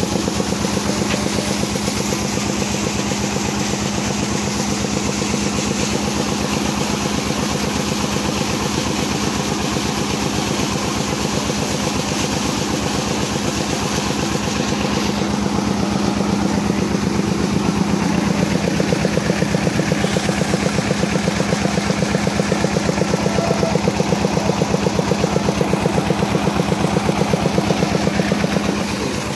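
Diesel engine of a shallow-machine irrigation pump running steadily with a fast, even chug, growing a little louder about halfway through. Water gushes from the pump's outlet pipe into a net.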